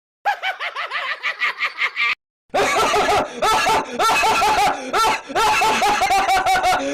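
Two laughter sound effects in a row: first a quick laugh of rapid, evenly spaced pulses lasting about two seconds, then after a brief silence a longer run of repeated "ha" syllables.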